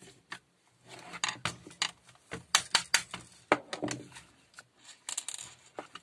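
Hard plastic cordless-drill housing parts being handled: irregular clicks and knocks, thickest in the middle, with a short scrape near the end.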